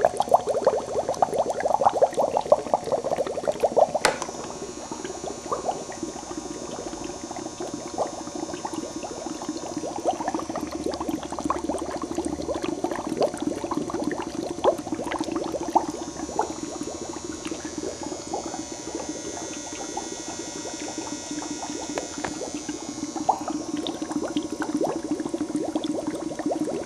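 HHO gas from the generator's hose bubbling up through water in a plastic container, a dense stream of small popping bubbles that is heaviest in the first few seconds and then settles to a steady bubbling. The bubbling shows that gas is flowing out through the flashback arrester. There is one sharp click about four seconds in.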